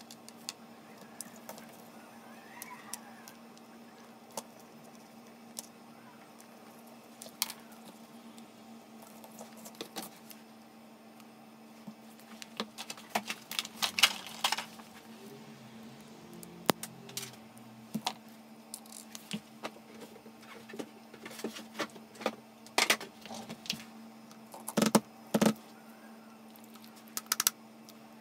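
Scattered clicks and clinks of an impact driver's metal and plastic parts being handled and set down on cardboard during hand disassembly. The clicks are busiest about halfway through and again near the end, over a faint steady hum.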